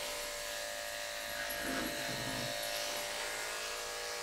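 Electric dog-grooming clippers fitted with a size 10 blade, running with a steady hum as they shave the synthetic fur on a dog model's face.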